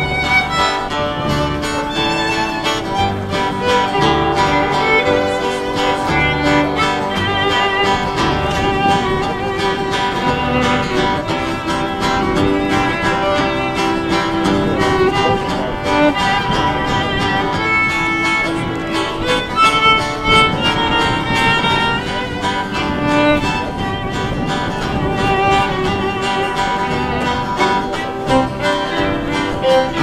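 Live acoustic string band playing an instrumental passage with no singing: fiddle lead over acoustic guitar and upright bass, in an old-time/bluegrass style.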